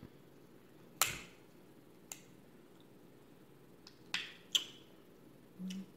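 Cooked crab leg shells snapping and cracking as they are broken apart by hand: about six sharp, separate cracks, the loudest about a second in and a quick pair around four seconds.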